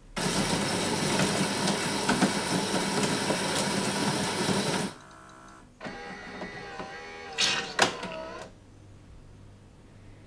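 Siemens EQ.6 Plus s500's built-in grinder grinding coffee beans for about five seconds, then cutting off; the owner suspects this grinder of malfunctioning, since the coffee runs through too fast and leaves a moist puck. After a short pause the machine's brewing mechanism whirs briefly with wavering tones.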